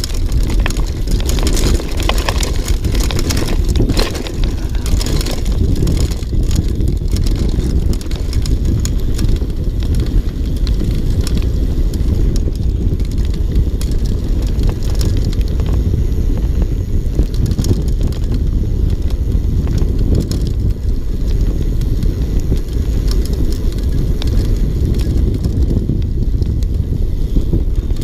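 Mountain bike descending a dirt trail: steady wind rumble on the camera microphone, with the tyres rolling over dirt and rocks and the bike rattling in frequent sharp clicks, densest in the first few seconds.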